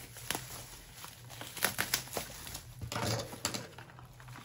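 Light crinkling and a scattering of small clicks and taps from photocards and their plastic packaging being handled, with a busier cluster about three seconds in.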